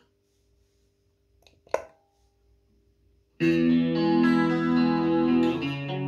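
Electric guitar through a Boss CE-2 chorus pedal and amp: near silence with a single sharp click a little under two seconds in, the pedal's footswitch engaging the chorus. About three and a half seconds in, a loud chord rings out and sustains with the chorus on.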